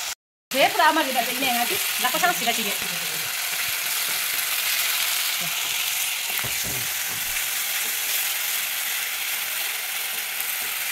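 Sliced onions and garlic sizzling in hot oil in a metal wok as they are stirred with a wooden spatula: a steady frying hiss, with a few soft knocks around the middle.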